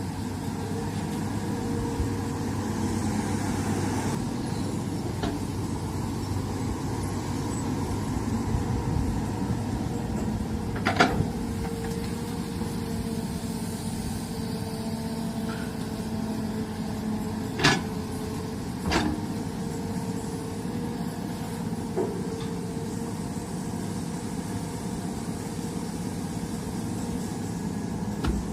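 Excavator's diesel engine running steadily, with a few sharp knocks over it, the loudest about eleven seconds in and two more close together later on.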